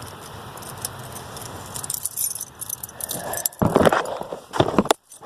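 A bunch of keys jangling and clicking as the truck key is handled for the ignition. The jingling is light at first and gets louder with several sharp clinks a little over halfway through.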